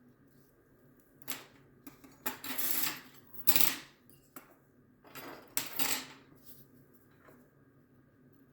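Hard plastic of a flash drive's casing clicking and scraping as its latched housing is worked apart: a sharp click about a second in, then three short scraping rattles, the longest near the middle.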